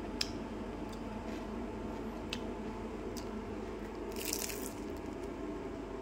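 Someone eating a crispy deep-fried kuih (kue kodok): a few small crunches and mouth clicks, then one louder crunching bite about four seconds in.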